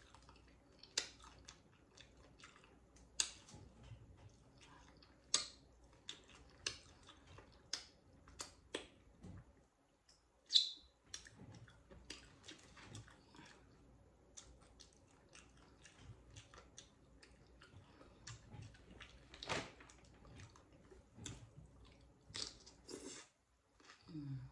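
Close-up chewing of loaded tortilla chips: irregular crunches and wet mouth clicks, a few sharper crunches standing out.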